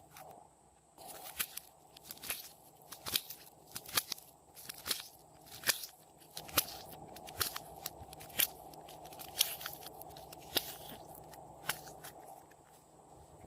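Clear slime being worked by hand, giving a string of sharp sticky clicks and pops, about one or two a second.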